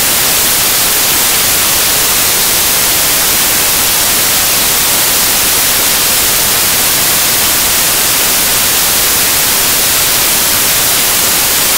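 Loud, steady static hiss, even across all pitches, that cuts in and out abruptly. It is a fault in the recording's audio track that blots out the street sound.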